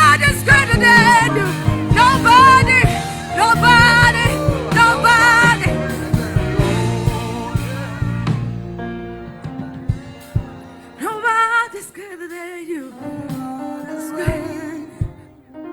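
Gospel worship song: a voice singing with a wavering pitch over band accompaniment. About halfway through the music drops to a quieter, sparser passage, with one more short sung phrase later on.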